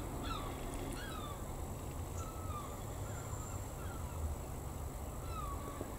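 Faint bird calls, short sliding chirps several times over, above a steady low hum.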